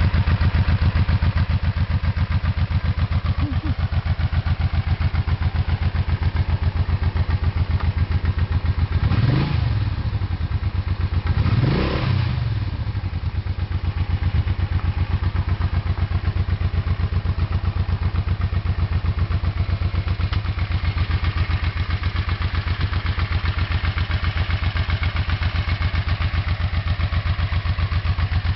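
1985 Honda Shadow VT500C's V-twin engine idling with an even pulse, blipped twice in quick succession about a third of the way in, each rev rising and dropping back to idle.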